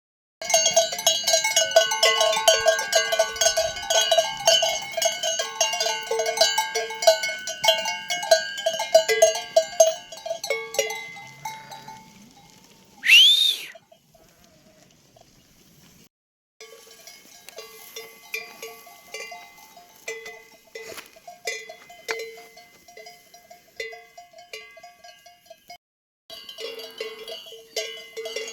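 Many sheep bells on a flock clanking in an uneven, jangling rhythm. About halfway through a short, loud high-pitched call rises and falls, and the bells drop out briefly twice in the second half.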